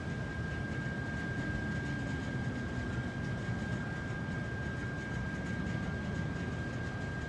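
Steady city hum from high above the street: a low drone of distant traffic and rooftop machinery, with a constant thin high-pitched whine.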